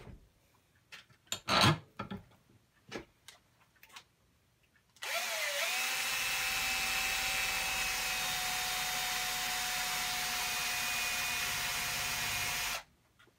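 A few light handling clicks, then about five seconds in a cordless drill starts, settles into a steady whine and runs for about eight seconds before stopping abruptly. It is spinning a length of thin MIG welding wire, one end clamped in a vise, to twist it straight for use as TIG filler rod.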